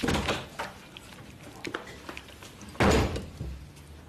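A few short knocks and handling noises, then a door slamming shut a little under three seconds in.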